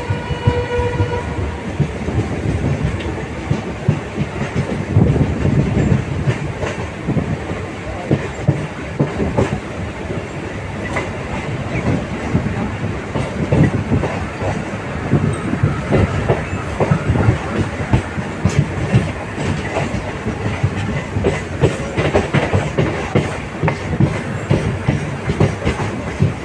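Indian Railways express train's coaches rolling past, wheels clicking steadily over the rail joints. A train horn ends about a second in.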